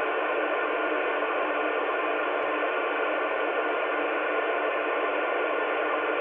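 CB radio receiver on channel 38 FM hissing steadily with the squelch open, the plain noise of the band with no station on the air, with faint steady interference tones running through the hiss.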